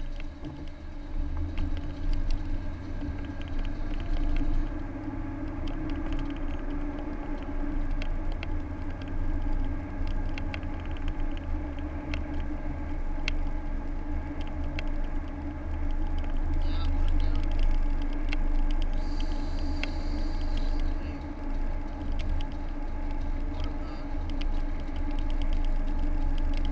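A car driving, heard from inside the cabin: a steady low rumble of engine and road noise with a constant hum and scattered light ticks and rattles.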